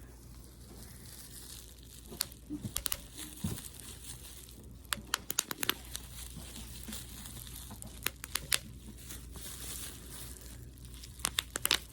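Plastic and cardboard packaging crinkling and crackling as an animatronic figure is pulled at inside its shipping box, in short bursts of sharp crackles several times.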